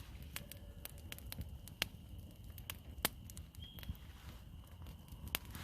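Small wood campfire crackling, with scattered sharp pops at irregular intervals, the loudest about three seconds in.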